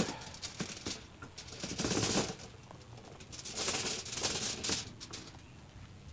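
Metal clicking and rattling of a hinged wire grill basket as its pins are undone and the top grate is lifted open, in two rattling stretches about two and four seconds in.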